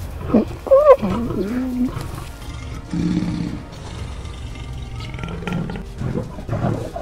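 Lions vocalising: short, sliding higher calls and snarls in the first two seconds, then a deeper, steadier growl about three seconds in.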